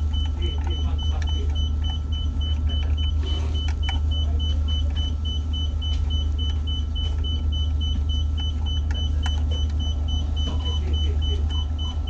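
Steady low drone of ship's machinery, with a rapid pulsing high electronic beep running over it and a few small clicks from handling the equipment.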